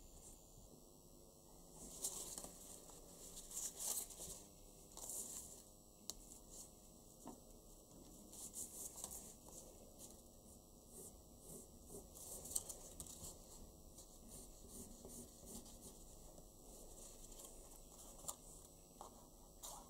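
Faint, irregular rustling and crinkling of craft paper as hands handle and shape paper flower cutouts, with a few small sharp scrapes and clicks.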